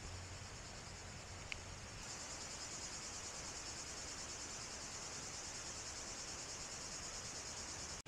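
Insects trilling steadily in a high, finely pulsing chorus that grows louder about two seconds in. A single short high chirp sounds shortly before.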